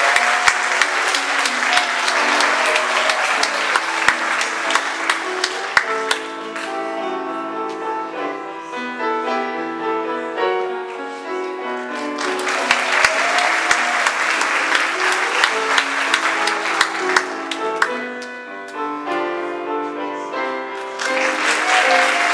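Audience applauding over piano music; the clapping dies away about six seconds in, leaving the piano alone, then rises again about halfway through, drops once more, and comes back near the end.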